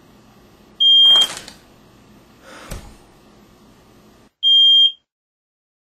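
Smoke alarm giving two loud, high-pitched beeps, each about half a second long and about three and a half seconds apart. A brief rustle and a dull thump come between them.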